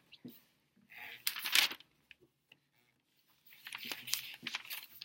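Packaging being handled: rustling and crinkling with small clicks and knocks. It comes in two bursts, one about a second in and a longer run of small clicks and rustles near the end.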